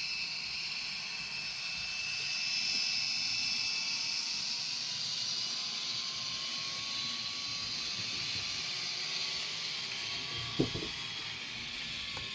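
HO-scale CSX GP40 model locomotive with onboard sound, its small speaker playing a running diesel engine sound with a hissy high edge as the model rolls along the track. A sharp click comes about ten and a half seconds in.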